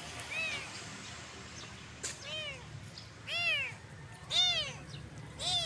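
Kitten meows: five short, high cries, each rising and falling in pitch, the first faint and then about one a second from two seconds in. They are the hungry cries of abandoned kittens calling for food.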